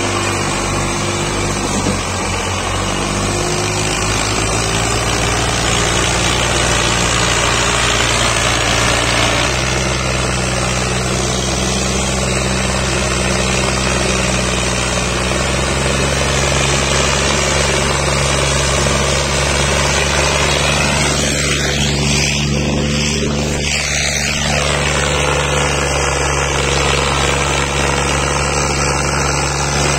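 Massey Ferguson 240 tractor's three-cylinder diesel engine running steadily while pulling a trolley heavily loaded with sugarcane; the engine note shifts about ten seconds in.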